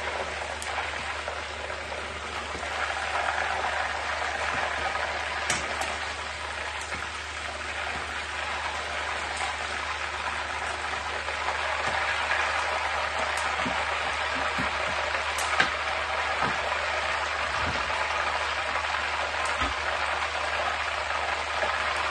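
Chicken pieces frying in hot oil in a frying pan: a steady sizzle, with a few short clicks as the metal turner knocks the pan.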